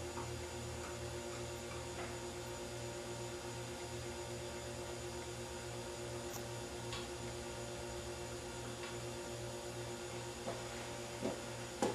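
Steady electrical hum throughout, with a few small clicks near the end.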